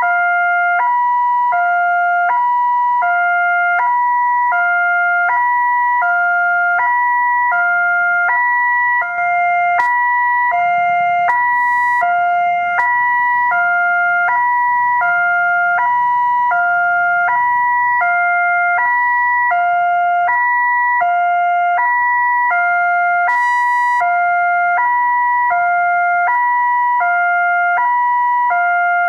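Railway level-crossing warning alarm: an electronic two-tone signal swapping between a higher and a lower pitch about every half second, steady and loud. It sounds while the barrier is down, warning that a train is approaching.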